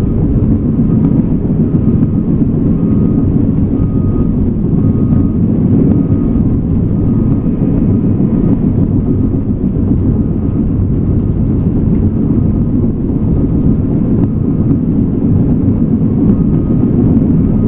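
Cat D5K2 crawler dozer's diesel engine running steadily, with a faint high beep repeating every second or so.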